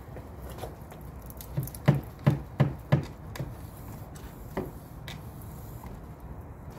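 Hard knocks from a water-fed cleaning pole and its brush head being worked against a gutter and fascia: a quick run of about five knocks, a third of a second apart, near the middle, then a few lighter knocks.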